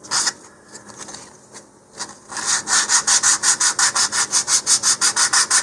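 220-grit sandpaper on a sanding block rubbing along the edges of a wooden model-rocket fin coated with dried sanding sealer. A few strokes at the start, then a softer stretch. From about two seconds in come quick, even back-and-forth strokes, about five a second.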